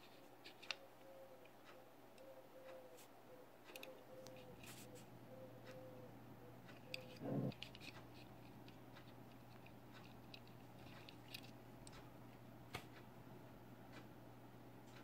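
Faint scattered clicks and light taps of a die-cast metal toy car being handled on a tabletop, with one louder, duller knock about seven seconds in.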